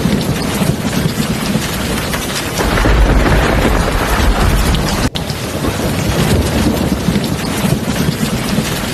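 Heavy rain falling steadily, with a deep thunder rumble that swells about a third of the way in and fades a couple of seconds later. The rain drops out for an instant about halfway through.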